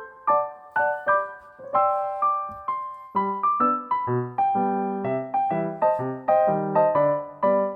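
Background piano music: a gentle melody of struck notes, with lower accompanying notes joining about three seconds in.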